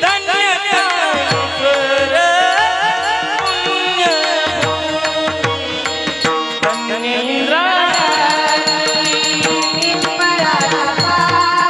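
Devotional abhang singing in a kirtan: a voice sliding and ornamenting through a melody, accompanied by drum strokes and a steady beat of small hand cymbals.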